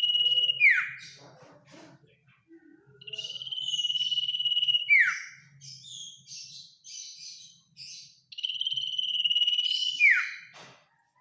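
Common iora (cipoh) singing. It gives three long, steady, high whistles, each held for about two seconds and ending in a quick downward slur, with short chattering notes between them.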